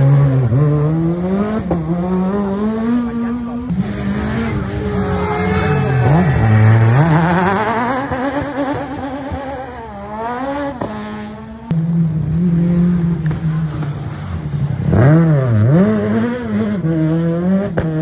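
Renault Clio Super 1600 rally cars, high-revving 1.6-litre four-cylinder engines, driven hard through a hairpin one after another. The engine pitch climbs and drops sharply again and again as the drivers lift, brake and change gear.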